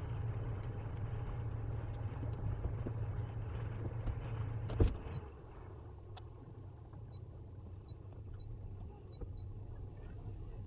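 A boat's engine runs steadily under way with a low rumble and a rushing hiss. About five seconds in there is a sharp knock, and after it the engine runs noticeably quieter.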